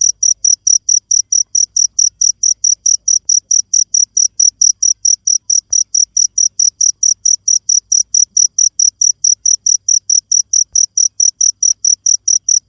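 A cricket chirping loudly and steadily, a high-pitched chirp repeated about four times a second without a break.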